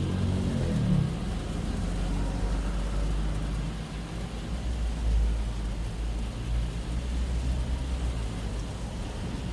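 Traffic passing on a rain-wet road, heard from inside a car: a low engine rumble that shifts in pitch near the start and then holds steady, over a steady hiss of rain.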